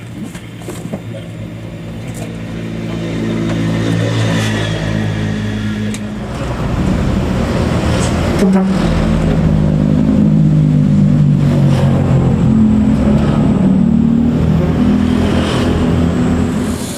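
A heavy vehicle's engine running close by. It revs up about six seconds in and stays loud and higher-pitched.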